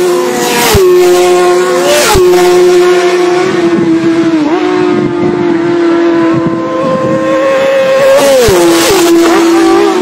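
Racing motorcycles at full throttle flying past one after another, each engine note dropping sharply in pitch as it passes: close passes about a second in, near two seconds, mid-way and twice near the end, with a high-revving engine note held between them.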